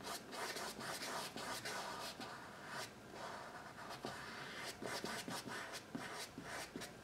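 Paintbrush bristles dragging paint across a stretched canvas in short, repeated scratchy strokes.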